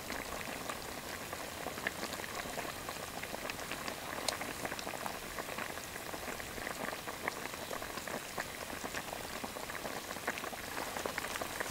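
Green curry simmering in a wok: a steady soft hiss with many small pops and crackles.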